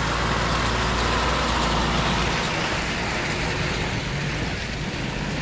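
Tata diesel container truck passing close by on a wet road: a steady engine rumble mixed with tyre noise on the wet surface, easing slightly near the end as it goes by.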